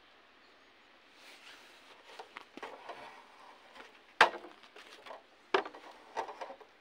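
Scattered crunches and knocks starting about a second in, with two sharp, loud knocks, the first about four seconds in and the second a second and a half later.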